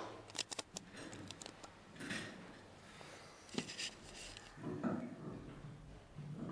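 Handling noise: a quick run of sharp clicks in the first second and a half, then rustling and soft knocks as things are set down on a table and a desk microphone is touched.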